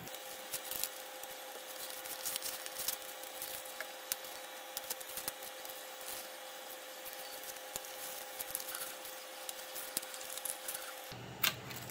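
Blue painter's tape being peeled and torn away by hand from a 3D printer's glass bed: scattered faint crackles and ticks, over a faint steady hum.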